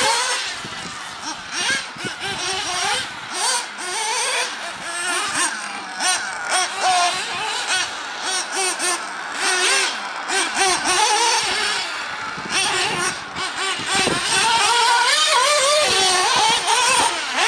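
Nitro RC buggy's small glow-fuel engine revving up and down as it laps the track: a high whine that rises and falls over and over as the throttle is opened and closed.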